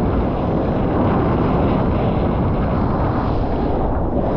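Steady rushing noise of strong wind buffeting the microphone over breaking ocean surf.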